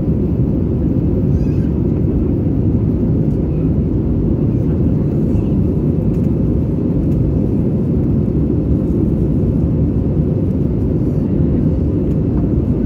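Steady low roar of an Airbus A320's engines and rushing air, heard inside the passenger cabin in flight.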